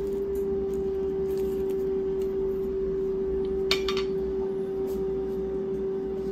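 A steady hum on one constant pitch, with a single light click about three and a half seconds in.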